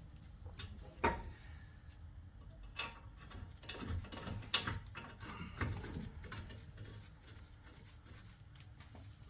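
Scattered clicks and knocks from metal tools and brake parts being handled during front brake pad work, the sharpest about a second in.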